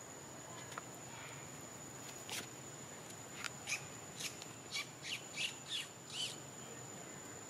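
A run of about nine short, high-pitched chirping calls from an animal, one single call a couple of seconds in and the rest in quick succession over the next few seconds.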